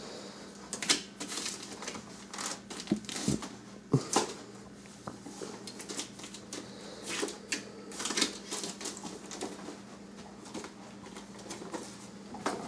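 A German Shorthaired Pointer chewing and tearing at gift-wrapping paper: an irregular run of crinkles, rips and small clicks.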